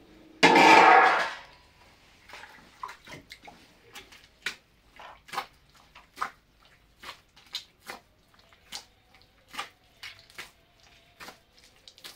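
Water splashing: a loud gush about half a second in that lasts about a second, then irregular sharp splashes or drips, one or two a second.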